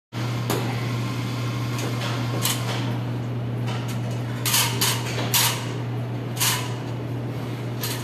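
Steady low machine hum, with short sharp noises breaking in about seven times.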